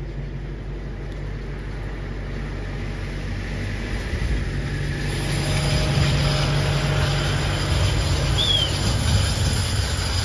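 Engine running steadily with a low hum that gets louder about halfway through. A brief high chirp sounds near the end.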